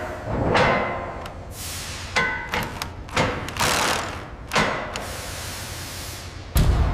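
A series of metallic clanks and knocks on steel, about one every half second to a second, some ringing briefly, with a heavy low thud near the end.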